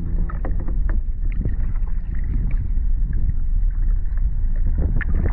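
Strong wind buffeting the microphone in a heavy, uneven rumble, with small splashes of water lapping against a kayak and paddle.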